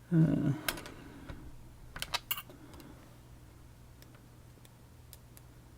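A few light, sharp clicks and taps of small metal lock parts being handled, most of them about two seconds in, with a brief murmur of a man's voice near the start.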